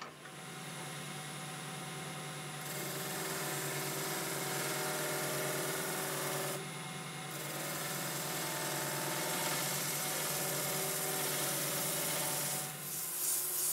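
Wood lathe motor running with a steady hum while a skew chisel makes light finishing cuts along the spinning wooden goblet stem, heard as a hiss of the cut. The cutting hiss starts a few seconds in, breaks off briefly near the middle, resumes, and stops shortly before the end.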